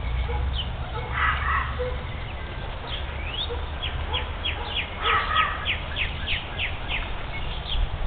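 Wild birds calling and singing. A run of about ten quick, high, down-slurred notes comes roughly three a second through the second half, with harsher, rougher calls about a second in and again around five seconds. A steady low rumble runs underneath.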